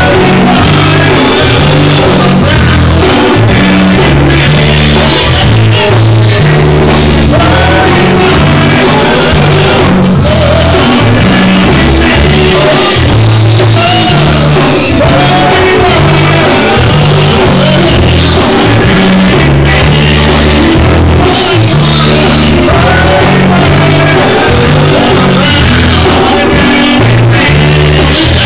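Live rock band playing loudly, with a lead singer over bass and a steady beat.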